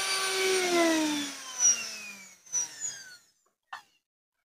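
National blender's brushed motor, out of its housing, running at speed with a steady whine, then cut off about half a second in and spinning down, its pitch falling as it coasts to a stop within about three seconds, with a few short clicks as it slows. It is a bench test of the repaired motor with its carbon brushes refitted, and it runs.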